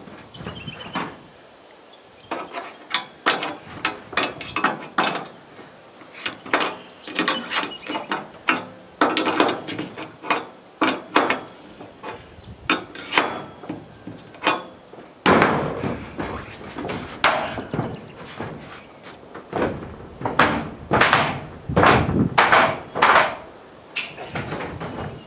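Irregular knocks, taps and clatters of hardware being handled and fitted, coming in quick clusters and growing louder and busier about fifteen seconds in.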